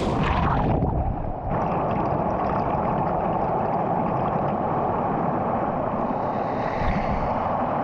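Steady rushing noise of moving water, strongest in the low and middle range, which changes abruptly about a second and a half in.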